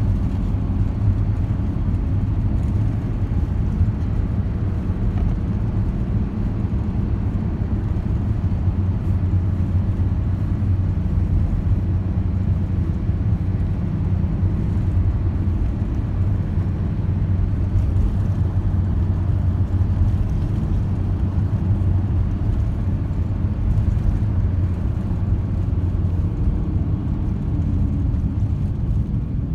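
Steady low rumble of a moving road vehicle heard from inside the cabin: engine and tyre noise at a constant highway speed.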